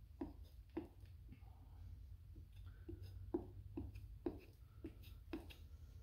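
Putty knife spreading and dabbing sealant paste into a crack in a rubber tractor tire: a quiet series of short, soft dabs and scrapes, roughly two a second, over a low steady hum.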